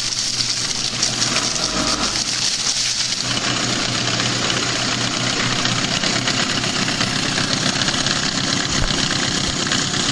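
2000 Mercury 15 hp two-cylinder two-stroke tiller outboard running steadily on a test tank, its propeller churning and splashing the water in the barrel.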